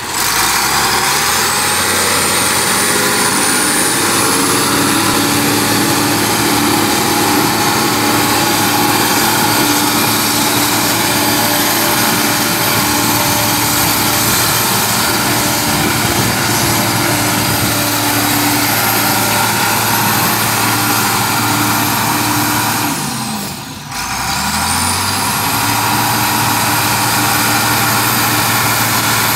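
TD15C crawler dozer's diesel engine running hard, with a high whine that rises in pitch over the first few seconds. About 23 seconds in, the engine speed sags and then picks back up within a second or so.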